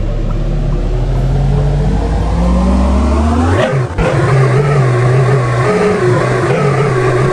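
An engine or motor rising steadily in pitch as it revs up, cutting off abruptly about four seconds in, then running at a steady pitch.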